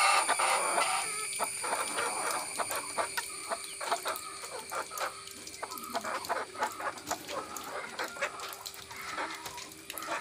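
Native backyard chickens clucking in short, repeated calls.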